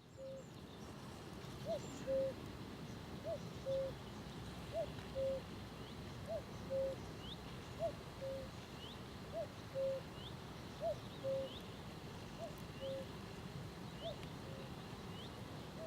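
A bird repeating a low two-note call about ten times, roughly every one and a half seconds: a short rising note, then a slightly lower, level note. Over it, from about seven seconds in, a second bird gives faint high chirps at a steady pace.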